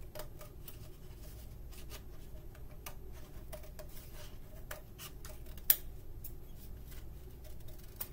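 Scissors snipping around the end of a cardboard paper towel tube in short, irregular cuts, trimming it shorter to raise the tube's pitch; one sharper click a little past halfway.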